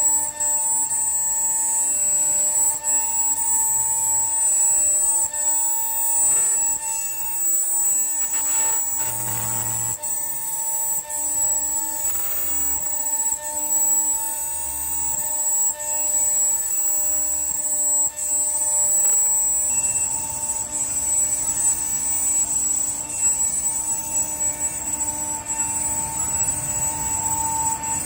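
CNC router spindle running with a steady whine while its cutter mills a pattern into aluminium plate.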